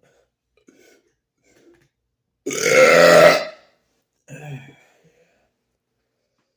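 A man's loud, deep belch lasting about a second, followed about a second later by a shorter, quieter sound.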